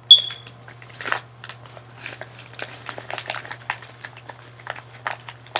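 A package being opened by hand: the packaging crinkles and crackles in many small, sharp clicks, with one loud snap right at the start.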